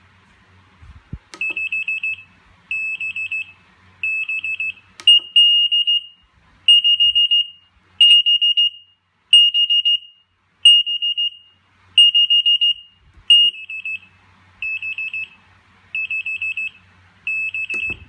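Eight-channel digital kitchen timer's alarm beeper sounding for an expired channel, whose display reads "End": a high electronic beep repeating about every 1.3 seconds. It starts as groups of rapid short beeps, turns to longer steady beeps about five seconds in, returns to rapid groups about thirteen seconds in, and stops with a click at the very end as the channel is reset.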